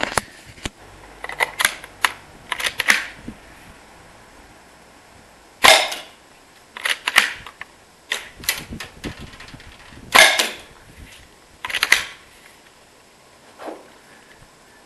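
Airsoft SVD sniper rifle firing 0.46 g BBs into a wooden plank: a string of sharp cracks, one every second or two, each shot with the BB smacking into the wood. The shots come in a quick cluster early on, then more spread out.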